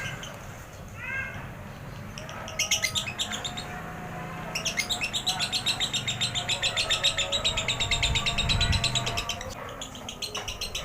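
Lovebird singing its long rapid chattering 'ekek' song: a few rising chirps, a short burst of fast repeated notes, then an unbroken run of rapid notes lasting about five seconds. A lure song meant to set other lovebirds singing.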